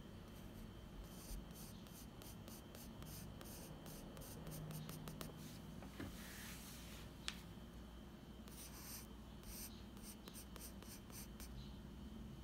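Pencil scratching across sketchbook paper in rapid hatching strokes, in two runs with a short pause between them, and a single sharp tick about seven seconds in.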